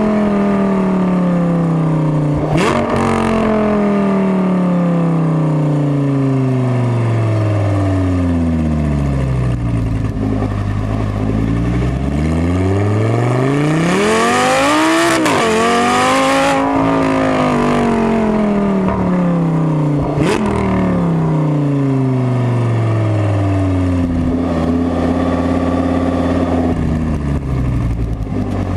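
Audi R8 V10 FSI engine through an aftermarket exhaust with valve flaps, heard at the tailpipe on the move. The engine note falls off throttle for about ten seconds, climbs hard under acceleration to a loud peak about fifteen seconds in, falls away again and settles to a steady cruise near the end, with two short sharp cracks along the way.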